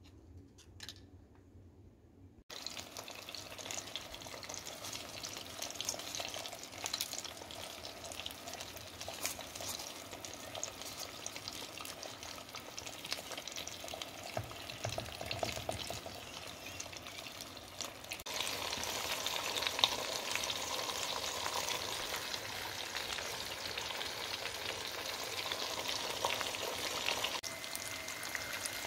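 Whole fish frying in oil in a pan with garlic and bay leaves: a steady sizzle and crackle that starts about two and a half seconds in and grows louder about two-thirds of the way through.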